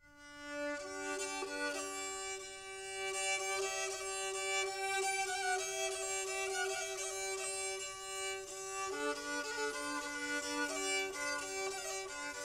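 Instrumental background music: a melody over a held low drone note, fading in at the start.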